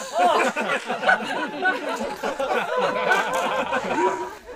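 Rapid, jumbled voices with many overlapping rises and falls in pitch, and no clear words.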